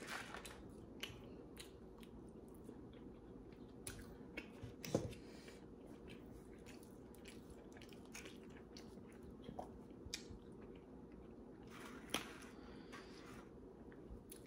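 Faint chewing and mouth sounds of a person eating a sandwich and curly fries, with scattered soft clicks, a little louder about five seconds in and again near twelve seconds.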